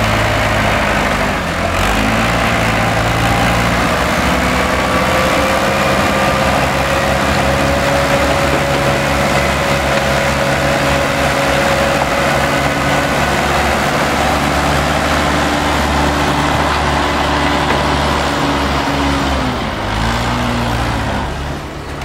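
Diesel engine of a small crawler bulldozer running under load as it pushes wet sludge, with a thin steady whine over the engine note. The engine speed dips briefly about two seconds in and again near the end.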